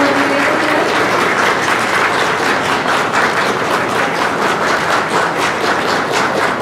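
Crowd applauding: many hands clapping together at a steady level, the claps growing more distinct and separate toward the end.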